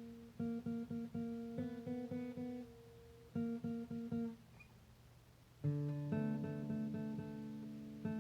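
Guitar strummed in short, choppy chord strokes. After a pause of about a second and a half, a chord is struck and left to ring, with a few more strokes over it.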